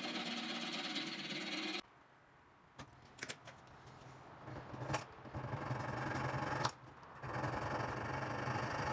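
Needle file rasping on the edge of a small metal disc clamped at a bench vise, cut off abruptly near 2 s, then a quieter stretch with a few sharp clicks and taps before the rasping resumes near the end, over a low steady hum.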